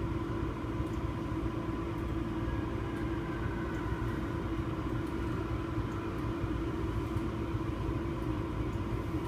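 Steady hum and rumble in the cab of a Re 485 electric locomotive standing still with its equipment switched on, with two steady tones held over the low noise.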